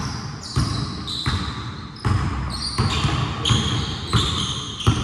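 A basketball being dribbled on a hard court, about one bounce every three-quarters of a second, with short high squeaks from sneakers on the floor.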